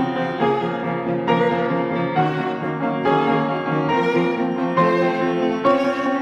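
String quartet of two violins, viola and cello playing a brisk, rhythmic passage together with an overdubbed piano part, with new notes about every half second.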